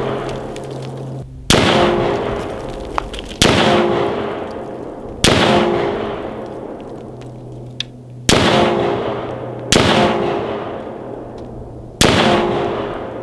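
Six rifle shots fired one at a time, about one and a half to three seconds apart, each followed by a ringing echo that dies away over a second or two.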